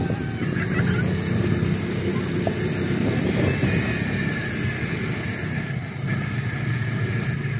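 Quad bike (ATV) engine running steadily at a constant pitch while riding over sand.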